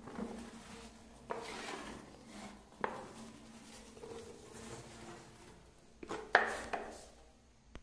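Notched steel trowel scraping across the floor as it is pulled through wet epoxy liquid-porcelain coating, in several separate strokes, the loudest about six seconds in.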